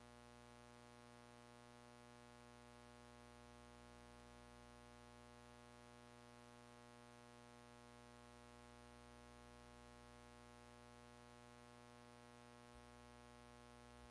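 Near silence: a faint, steady electrical hum and buzz that does not change.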